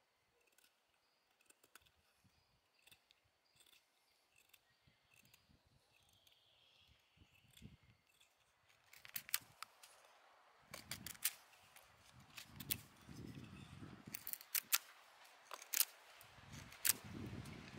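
A fixed-blade knife whittling a dry wooden stick: faint scraping cuts at first, then from about halfway a run of louder sharp clicks as the blade bites the wood, with low rumbling handling noise under them.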